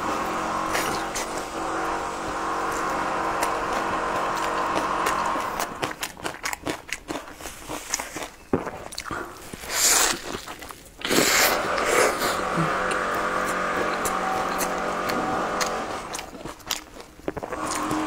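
Crunchy bites and chewing of a crisp, vegetable-filled fried flatbread, with two loud bites about ten and eleven seconds in. A steady humming drone sits behind it for the first five seconds or so and again from about eleven to sixteen seconds.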